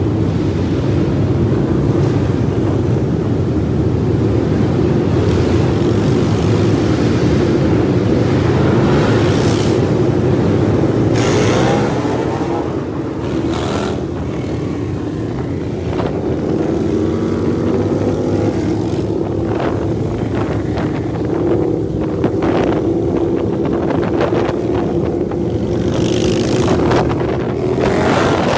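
A large pack of cruiser motorcycles riding together, many engines running loudly at once, with engine pitch rising as riders accelerate about twelve and again about sixteen seconds in. The pack is in a road tunnel at first and a little quieter once out in the open, with wind on the microphone.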